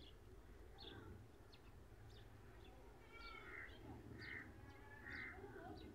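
Faint birdsong: scattered short high chirps, with three harsher calls about a second apart in the second half.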